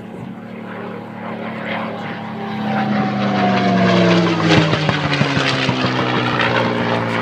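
Propeller airplane flying past, its engine growing louder to a peak about four seconds in, with the pitch falling as it goes by.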